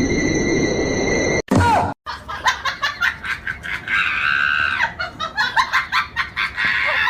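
Steady noise with a few high steady tones, cut off after about a second and a half. Then a run of quick high-pitched vocal cries, with one longer high scream about four seconds in.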